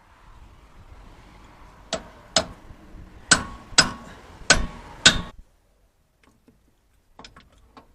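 Six sharp metal strikes with a short ring, in three pairs about half a second apart, then a few faint clicks near the end: parts being knocked loose while a Shifeng three-wheeler's gearbox is taken apart.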